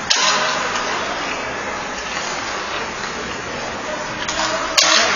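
Ice rink ambience as hockey players skate: a steady wash of noise with faint distant voices. Two sharp knocks, one just after the start and one near the end, each trail off in a short echo.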